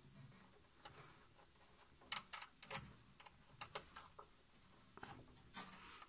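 A scattering of faint, short clicks and light rubbing as push-on spade connectors are fitted onto the terminals of a washing machine heating element.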